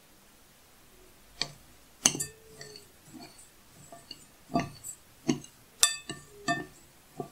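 Spoon stirring dry bulgur and semolina in a glass bowl and knocking against the glass. From about a second and a half in come irregular clinks, several leaving a short ring from the bowl.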